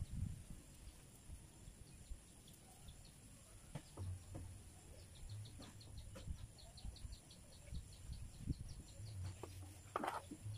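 Faint clicks and taps from small Stihl 070 chainsaw carburetor parts being handled by hand. From about halfway a bird calls in the background with a run of quick high ticks.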